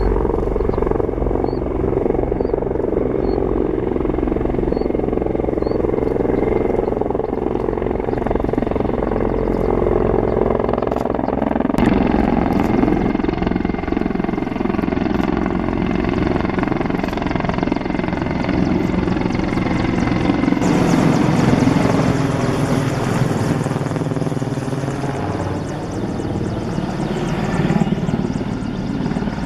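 Two Mi-24 Hind twin-turbine attack helicopters flying in, their rotor beat and engine noise continuous and loud, the pitch of the beat shifting as they move. About two-thirds of the way through, a high turbine hiss joins the rotor noise.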